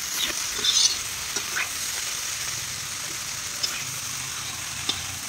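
Fiddlehead ferns and potato pieces sizzling as they are stir-fried in a large wok, with the metal spatula scraping and clinking against the pan; a louder scrape about a second in.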